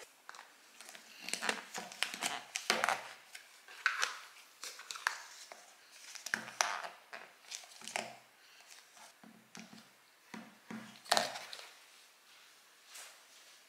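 Plastic lids being pressed and snapped onto plastic food storage containers: a run of irregular crinkles and clicks that thins out near the end.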